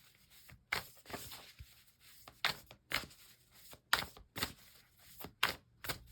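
Tarot cards being shuffled and handled: a string of short papery snaps and slides at uneven intervals.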